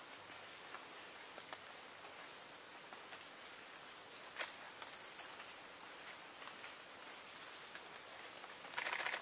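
A hummingbird singing: a quick run of about eight very high, thin, downslurred squeaky notes, starting a few seconds in and lasting about two seconds. A steady high thin whine runs underneath.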